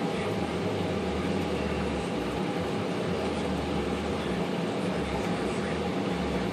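IBM Selectric typewriter's electric motor running with a steady hum, under test after its gear pack has been refitted.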